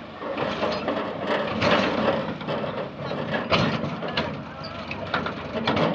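Tractor engine running while a load of soil and clods slides and pours off a tipped trailer bed, with a few sharp knocks as lumps and the trailer's tailgate strike.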